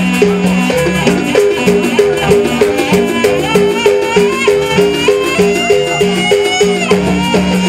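Live jaranan ensemble music: a steady beat of pitched metal gong-chime strokes, about two a second, with drumming under a high, wavering melody line.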